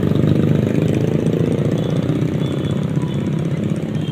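Engines of a slow-moving convoy of cars and motorbikes, running steadily at low speed, with voices mixed in.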